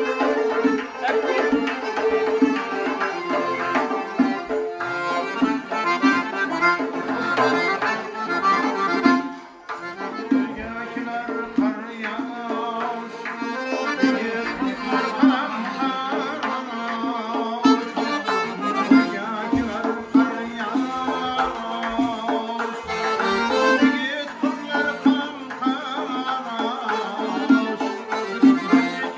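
Uzbek folk ensemble playing an instrumental piece: accordion, a doira frame drum struck by hand, and plucked long-necked lutes. The music drops out briefly about nine seconds in, then carries on.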